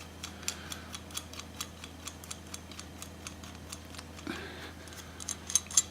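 Metal nut being threaded onto a bolt by hand: a run of light, irregular clicks and ticks, several a second, coming faster and louder near the end.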